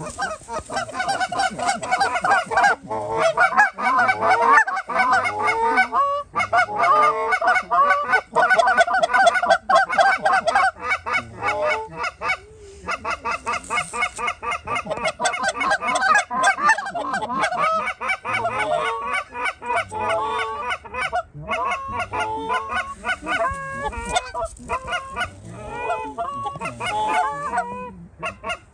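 A large flock of Canada geese honking, with many overlapping calls in a continuous din.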